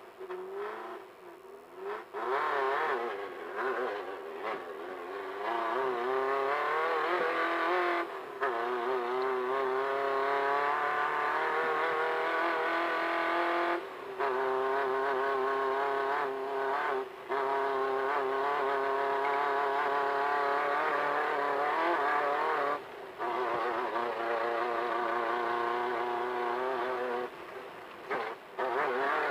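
Off-road desert race car's engine running hard under acceleration, its pitch wavering with the throttle and rough ground, lower for the first couple of seconds and then held high. The engine note breaks off briefly about half a dozen times, near eight and fourteen seconds in, then again later, as the throttle lifts.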